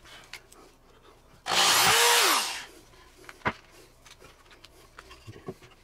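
A cordless drill runs in one short burst of about a second, its motor speeding up, holding and winding down as it works into the wooden shelf boards. A single sharp knock follows, with light knocks and rubbing of the boards being handled.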